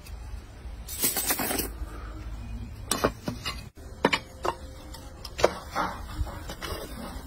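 Gold chains jingling briefly about a second in, then a string of sharp metal clinks and clanks as tongs knock against the furnace lid and crucible. A low steady rush from the gas-fired furnace burner runs underneath.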